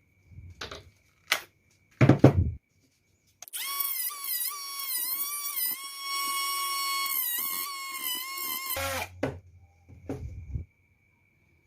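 Maktec MT081 cordless drill, adapted to an 18 V Makita LXT battery, running for about five seconds with a high motor whine whose pitch dips and recovers a few times as the trigger is worked, then stopping sharply. A few knocks and one louder thump come before it, and a few more knocks after.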